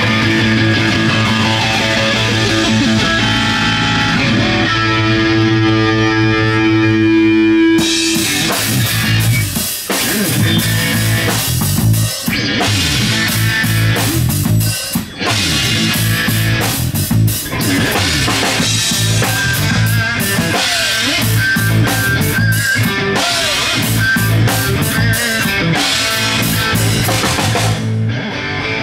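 Live rock band playing an instrumental intro: electric guitar and bass guitar hold sustained notes, then the drum kit with cymbals comes in about eight seconds in and the full band plays on.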